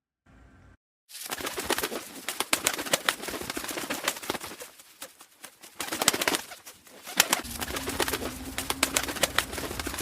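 Pigeons cooing amid a dense run of rustles and clicks, starting after about a second of silence.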